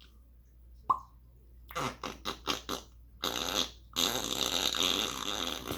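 African grey parrot making a fart sound: a pop, a quick string of short sputters, then one long raspy fart-like blast that is the loudest part.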